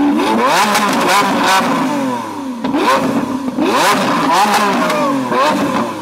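Lamborghini Aventador V12 being revved in repeated blips, its pitch rising and falling several times. Clusters of sharp cracks and pops from the exhaust come as it spits flames.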